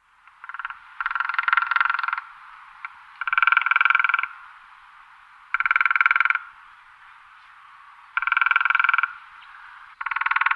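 Woodpecker drumming on a tree: five rapid drum rolls, each about a second long, spaced about two seconds apart.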